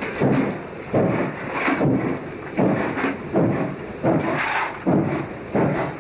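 Two-cylinder class 15F 4-8-2 steam locomotive working at low speed: exhaust beats at about one and a third a second, with steam hissing between them.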